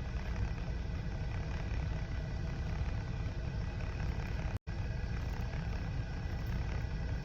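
Car engine idling, heard from inside the cabin: a steady low rumble with an even hiss over it. The sound drops out for a split second about halfway through.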